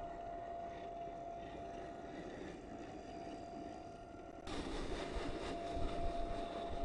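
Small electric motor and drivetrain of an RC4WD Trail Finder 1/10-scale crawler with a steady whine as it drives through shallow slushy water. About four and a half seconds in it turns louder, with crunching as its tyres dig through snow.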